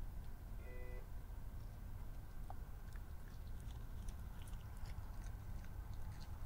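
Steady low rumble and hiss from a trail camera's microphone at night, with faint scattered clicks and a brief faint tone just under a second in.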